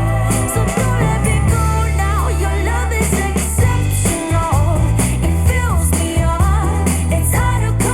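Pop-rock song with singing, drum kit, bass and guitar, played back through Bowers & Wilkins PX7 noise-cancelling headphones over aptX HD and recorded to match what is heard at the ear. Heavy held bass notes change every second or so under gliding melody lines.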